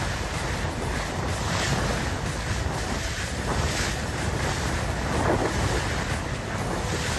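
Strong sea wind buffeting the microphone over the steady wash of waves, a continuous low rumbling noise.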